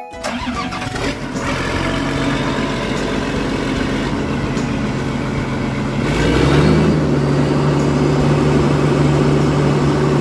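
A heavy vehicle's engine running steadily. About six seconds in it revs up and holds at a higher, louder steady note.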